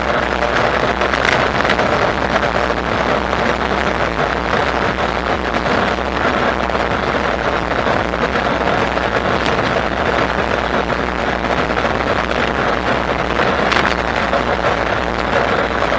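Steady rushing wind and road noise of an e-bike ride, with a low steady hum underneath.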